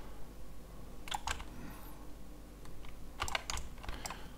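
Computer keyboard and mouse clicks: a couple of taps about a second in and a quick cluster a little past three seconds, over a faint low hum.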